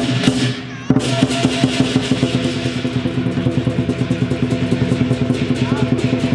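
Lion dance percussion: the lion drum beaten in a fast, steady beat with clashing cymbals. The playing drops off briefly just before a second in, then comes back in loud.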